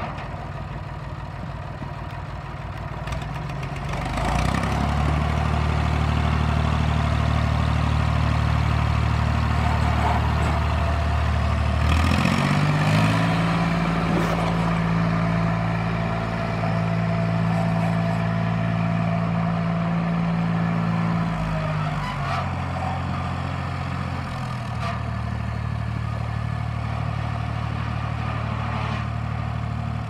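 Leyland 253 farm tractor's engine running, held at steady speeds that step up about four seconds in and again around twelve seconds, then drop back in two steps in the last third as the tractor drives.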